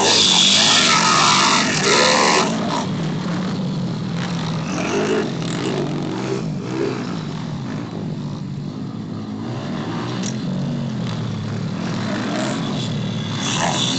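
Several pit bike engines revving up and down. One bike passes close and loud in the first couple of seconds, then the others rise and fall further off.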